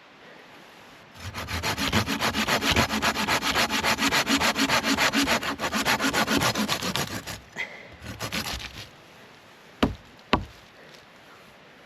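Hand saw cutting through a dry dead log for firewood in fast, even back-and-forth strokes for about six seconds, then a few more strokes. Two sharp knocks follow near the end.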